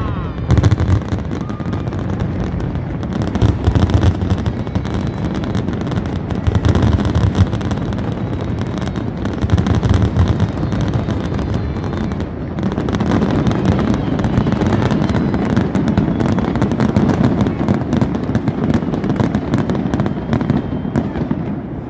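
A fireworks display: aerial shells bursting one after another, with deep booms every few seconds over continuous crackling.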